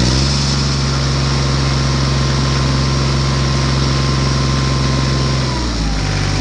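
An engine running steadily with an even, idle-like hum. Its pitch steps up at the start and drops back down about five and a half seconds in.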